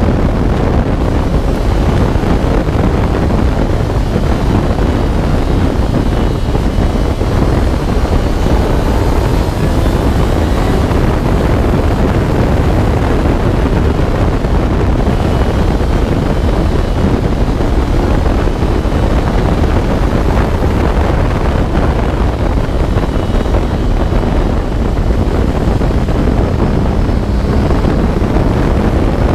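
Heavy wind buffeting on the microphone in an open-cockpit MNR Vortx track car at speed, over its Honda CBR1000RR Fireblade inline-four engine running under load. The noise is loud and steady throughout.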